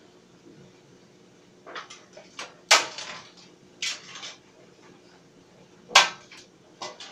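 Tumble dryer running with a faint steady hum, while something in the tumbling load clinks and knocks against the drum at uneven intervals. The loudest knocks come about three seconds in and again about six seconds in.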